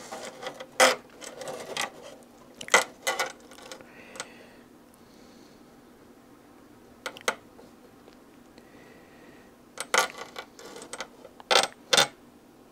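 Model aircraft engine cowl being handled and test-fitted over the engine and exhaust, giving sharp clicks and knocks in short clusters: several at the start, two about seven seconds in, and more near the end.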